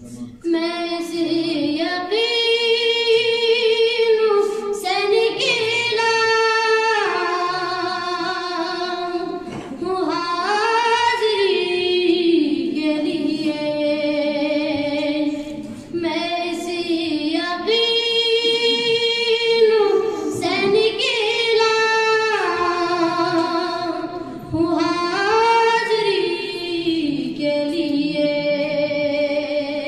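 A boy reciting a naat, singing solo and unaccompanied in a high, unbroken voice, in long held melodic phrases with ornamented slides and brief pauses for breath between them.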